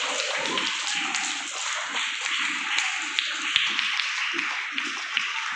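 A group of people clapping: steady applause made of many quick, overlapping hand claps.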